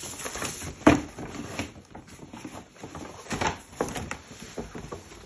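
Rustling and irregular light knocks of gift packaging being handled as the next present is picked up, with one sharper knock about a second in.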